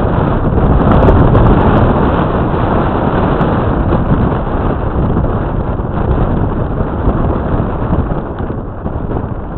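Storm wind buffeting the microphone: a loud, rough rushing that surges and eases, dropping a little near the end.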